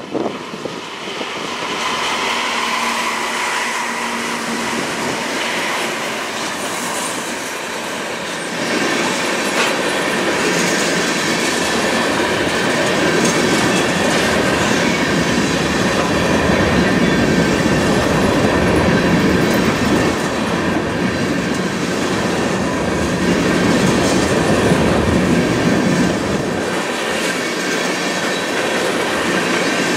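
GE ES44DC diesel locomotive leading a freight train passes close by. From about 8 seconds in, loaded tank cars rumble and clack over a steel trestle, with a steady high wheel squeal.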